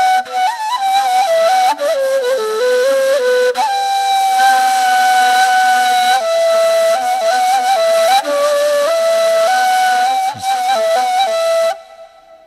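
Solo flute playing a slow, ornamented melody over a soft low backing, as an instrumental passage of a devotional song. It stops abruptly near the end.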